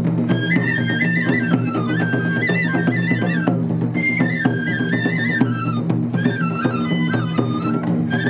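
Japanese lion-dance festival music (shishimai hayashi): a transverse bamboo flute plays a stepping, ornamented melody over a steady low drone, punctuated by drum strokes.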